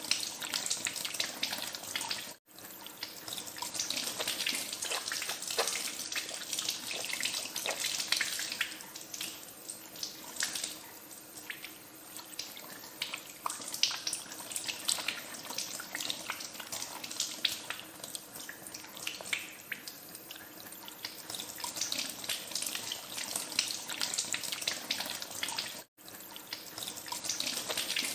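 Tap water running into a sink while hands are washed under the stream, with uneven splashing. The sound drops out for an instant twice.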